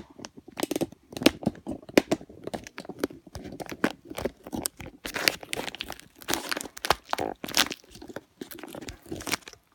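Irregular crinkling and crackling handling noise, a dense run of small clicks with louder clusters here and there.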